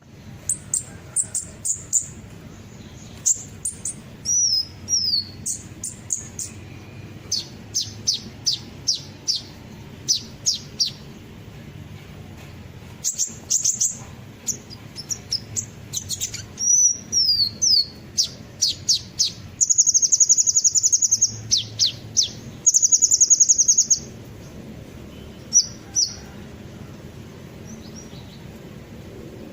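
Sunbird ('kolibri ninja') song used as a bird-lure call: a string of sharp, high chirps and short falling whistles, with two rapid, buzzy trills of a few seconds each about two-thirds of the way through.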